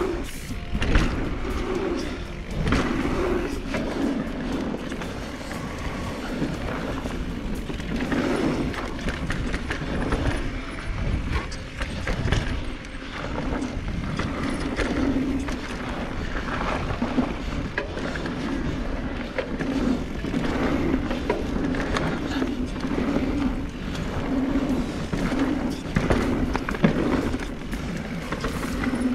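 Specialized Turbo Levo electric mountain bike ridden fast down a dirt trail: tyres rolling over packed dirt, with wind on the action-camera microphone and frequent knocks and rattles from the bike over bumps.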